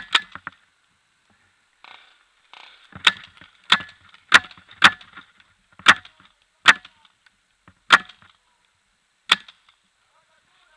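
Paintball marker firing single shots: one sharp pop at the start, then about eight more at an uneven pace, half a second to a second and a half apart, stopping a little over a second before the end.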